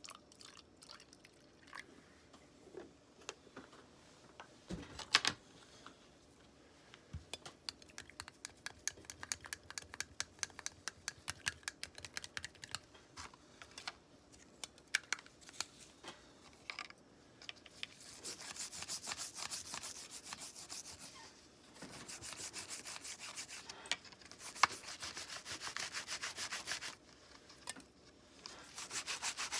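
Hand sanding a part of an old folding knife: long stretches of rasping sandpaper strokes in the second half, broken by short pauses, after a run of light rapid scraping ticks.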